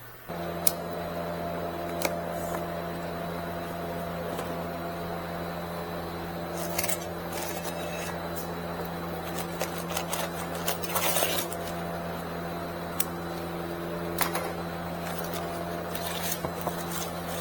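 Scattered metallic clinks and knocks of brake parts and tools being handled during a rotor swap, over a steady low hum that cuts in suddenly at the start.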